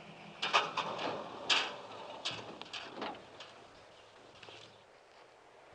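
1956 Ford F-250 pickup's engine running low as the truck stops, fading out about three seconds in, with several sharp clicks and knocks over it.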